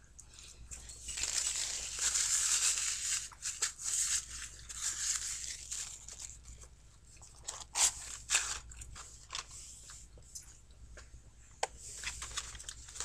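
Fast-food packaging rustling and crinkling for a few seconds, then scattered light taps and clicks of handling, as a cardboard fries carton is picked up near the end.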